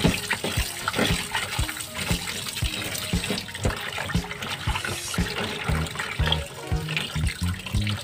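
Tap water running into a pot of raw beef chunks while hands rub and splash the meat clean under the stream. Background music with low bass notes comes in over the second half.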